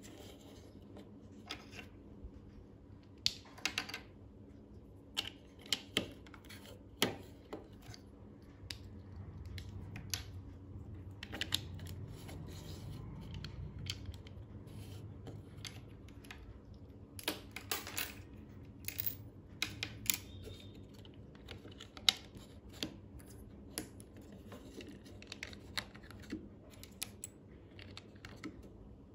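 Plastic LEGO bricks being handled and pressed together: irregular sharp clicks and light clatter, with one much louder click about three-quarters of the way through.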